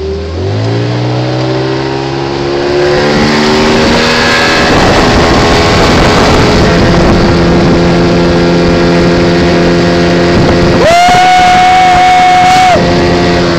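Small outboard motor on an inflatable dinghy opening up from low revs, its pitch rising over the first few seconds, then running steadily at speed with water rushing past the hull. Near the end a loud, steady high-pitched tone is held for about two seconds.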